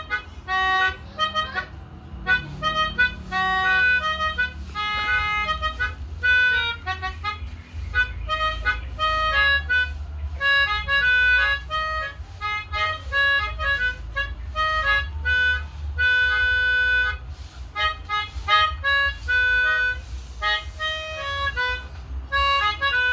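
Pianika (melodica) playing the Basuri 'telolet' bus-horn tune: a quick melody of short notes with a few held ones, over a steady low hum.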